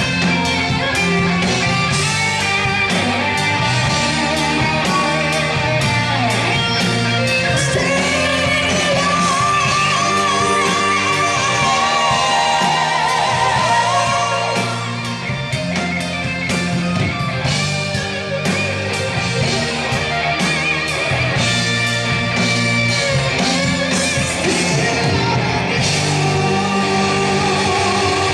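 Live rock band playing: a male lead singer over drums, bass guitar and guitar, with a slight dip in loudness around the middle. The sung lines include long wavering held notes, over steady drum and cymbal strokes.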